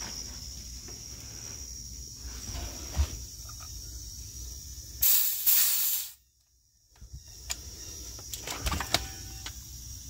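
Compressed nitrogen hissing loudly for about a second from the cylinder valve and gauge hoses, then cutting off suddenly. The nitrogen is pressurizing an R410A air-conditioning system to about 400 psi for a leak check.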